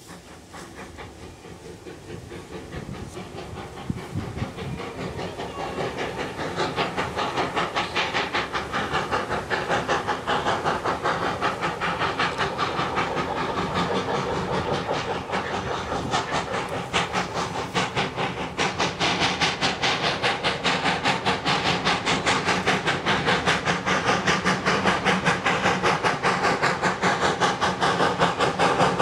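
Small industrial steam locomotive working toward the listener, its exhaust chuffing in a steady, rapid beat with steam hiss, growing steadily louder as it approaches.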